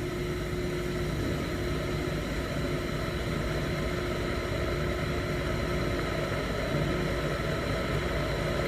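Electric kettle heating water: a steady hissing rumble as the water starts to warm up, still short of the boil.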